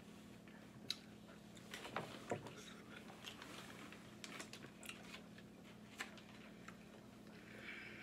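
Faint close-up eating sounds: scattered small clicks and crunches from king crab and shrimp shells being picked apart and chewed, with wet dips into a sauce bowl, over a low steady hum.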